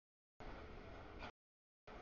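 Freight train cars rolling past a grade crossing, a faint steady rumbling noise that cuts out to dead silence twice, for about half a second each time, as the stream's audio drops out.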